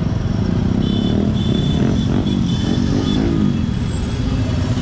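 Motorbike and scooter engines running together in slow, close traffic. Around the middle, a nearby engine's pitch rises and falls as it is revved.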